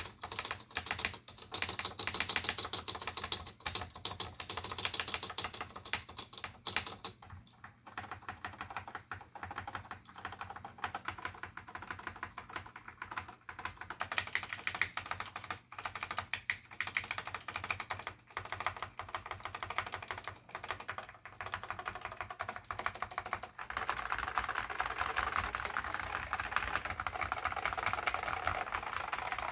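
Continuous typing on a Dell AT101 keyboard with Alps SKCM Salmon switches and ABS doubleshot keycaps: a rapid, uneven stream of key clacks. The typing gets denser and louder about three-quarters of the way through.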